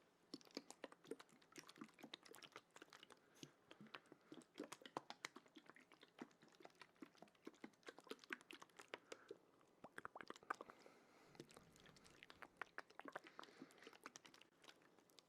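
Quiet, wet ASMR mouth sounds close to the microphone: a steady stream of soft, irregular clicks and smacks.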